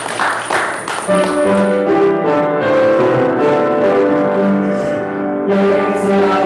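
Electric keyboard playing slow, sustained chords that change every second or so, coming in about a second in.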